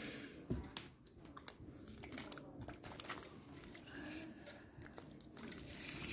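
Wet hands pressing and rubbing a lump of clay on a potter's wheel: soft squelching and rubbing with scattered small clicks, and one thump about half a second in.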